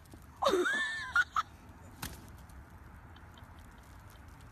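A short cry that rises and falls in pitch, followed by a few sharp clicks.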